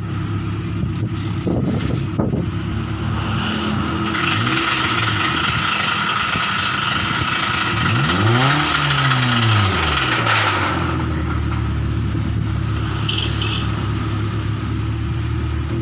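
Suzuki Katana engine running, revved several times: short blips, then one longer rev that climbs and falls back near the middle. A loud hiss runs alongside for several seconds in the first half.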